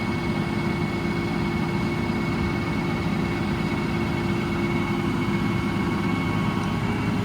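Truck's 6.7-litre Cummins ISB diesel engine idling steadily, with a steady high-pitched whine running over it.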